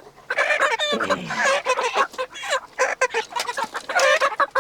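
Young Bresse chickens clucking and squawking repeatedly as they are caught and put into a crate.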